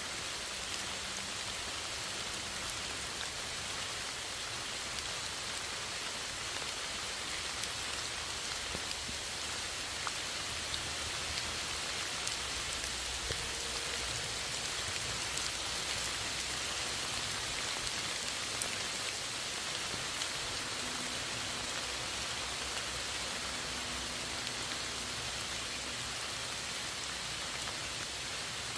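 Steady rain falling, a constant hiss with the patter of drops landing on surfaces.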